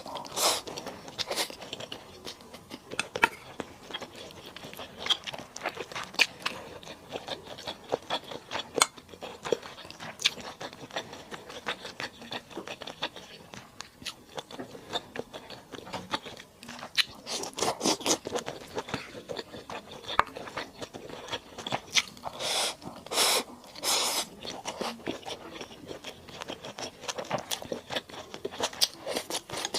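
Close-miked chewing and crunching of lemon chicken stir-fry, with many quick sharp clicks and a few louder crunchy bursts past the middle.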